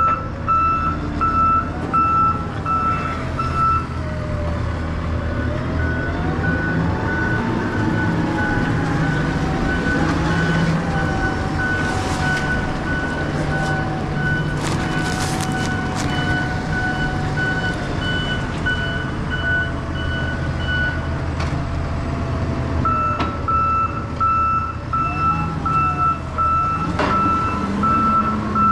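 Taylor forklift's backup alarm beeping steadily over its running engine, whose whine rises and falls as it works. Through the middle stretch a slightly higher-pitched alarm beeps instead, before the first returns near the end.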